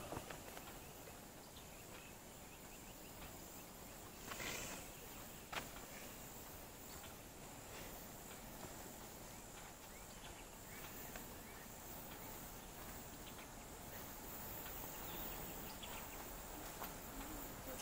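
Faint, steady high-pitched chirring of insects, with two faint knocks about four and a half and five and a half seconds in.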